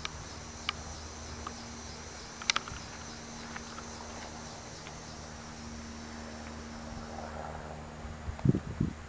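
Freight train of loaded trash-container flatcars rolling away along the track: a steady rumble and hum with a few sharp clicks, and some thumps near the end.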